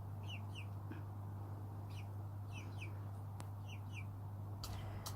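Young Pekin bantam pullets giving short, high peeps, mostly in pairs, every second or so, over a steady low hum. A few sharp clicks come near the end.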